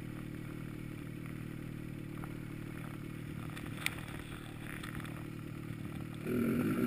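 Snowmobile engine idling steadily, with one sharp click about four seconds in. Near the end a louder sound with a wavering pitch comes in.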